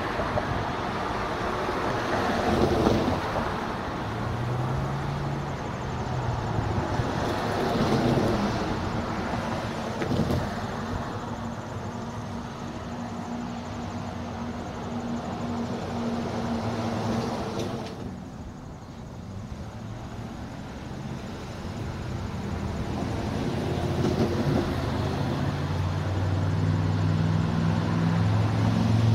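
A diesel locomotive's engine running as a slow train approaches, its low drone getting louder over the last few seconds.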